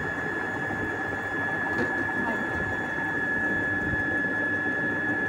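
A steady mechanical hum and hiss with a constant high-pitched whine, unchanging throughout.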